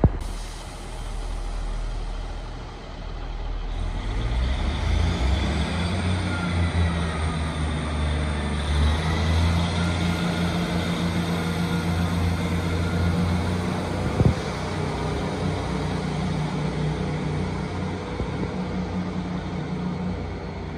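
Northern Class 158 diesel multiple unit pulling away, the drone of its underfloor diesel engines building as it accelerates and then holding steady. A whine rises over it about a third of the way in and levels off, and there is a single knock a little past the middle.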